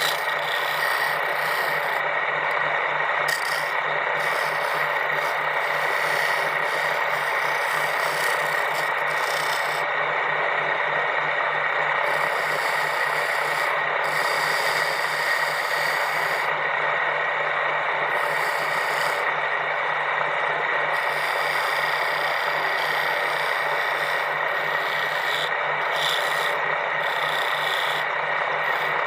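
Wood being sanded: a continuous abrasive rubbing with a steady tone running under it.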